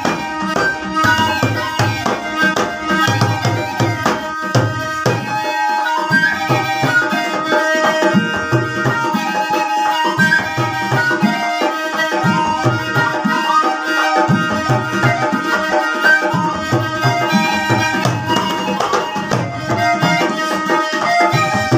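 Alghoza, a pair of wooden duct flutes blown together, playing a folk tune with a melody moving over one steady held drone note. A dholak hand drum beats a regular rhythm underneath.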